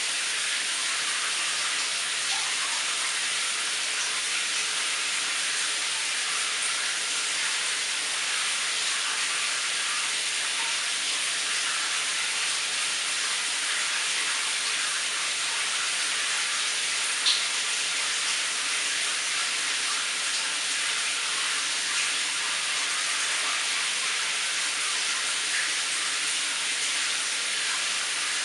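Shower running, its water spray making a steady high hiss, with one brief tick a little past the middle.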